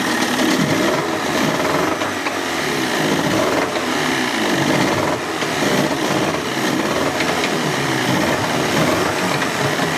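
Johnson outboard motor running in a test tank, freshly started, its speed rising and falling unevenly.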